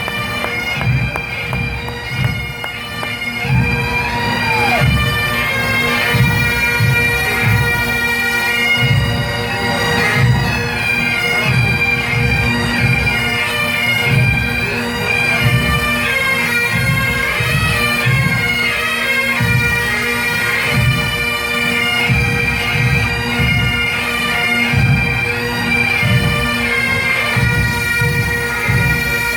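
Massed pipe band of bagpipes and drums playing a tune: steady pipe drones under the chanter melody, with a regular drumbeat.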